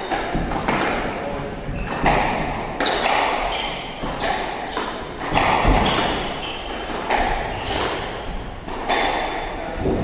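Squash rally: a quick series of sharp hits as the ball strikes the rackets and the court walls, each one echoing in the court, with short squeaks of shoes on the wooden floor.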